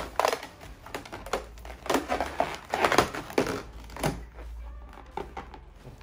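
Inflated latex balloons rubbing and squeaking against each other as hands press and twist a black mini globe balloon onto a cluster of small black balloons. It comes in irregular bursts for about four seconds, then goes quieter.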